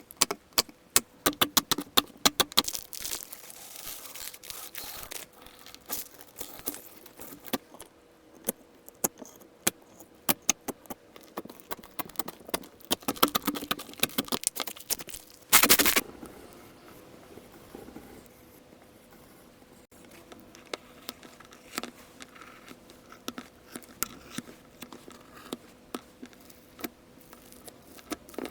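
Slime being squished and stretched by hand, giving runs of sharp clicks, crackles and small pops. There is one short, loud squelch-like burst a little past halfway, and the clicking is sparser and quieter after it.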